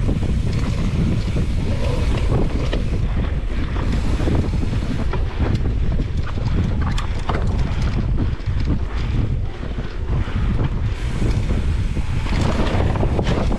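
Wind buffeting the GoPro's microphone as a mountain bike is ridden hard over a dirt race circuit, a steady rumbling rush with many small clicks and rattles from the bike and tyres on the rough ground.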